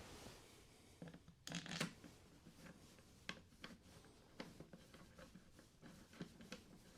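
Faint scattered clicks and taps of small metal parts and tools being handled, with a brief louder rustle or scrape about one and a half seconds in.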